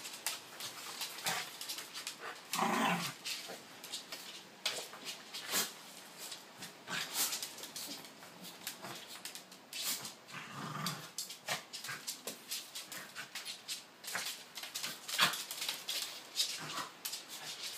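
Two Pembroke Welsh corgis play-fighting, with low growls about three seconds in and again about eleven seconds in, among many quick clicks and scuffles of paws on a hard floor.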